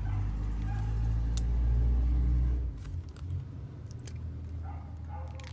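A deep rumble that builds, then drops off about two and a half seconds in, followed by a few faint ticks.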